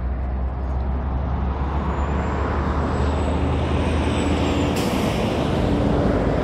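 Road traffic on a busy street, a steady rumble of passing vehicles, with a short sharp hiss about five seconds in.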